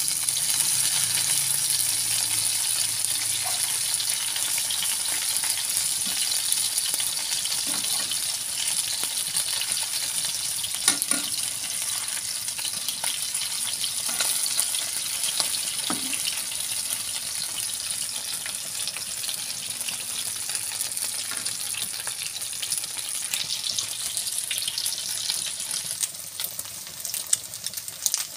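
Small whole bunog (goby) fish frying in oil in a non-stick wok, sizzling steadily, with a spatula stirring them now and then. The hiss eases a little and breaks into separate crackles near the end as the fish brown.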